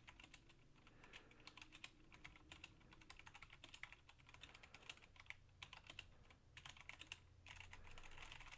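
Faint typing on a Velocifire VM01 mechanical keyboard with brown (Zorro) tactile switches: a fast, irregular patter of key clicks.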